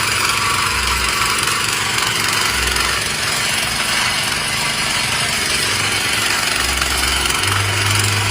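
Single-cylinder four-stroke petrol engine (GX 240, 8 HP) of a mini power tiller running steadily.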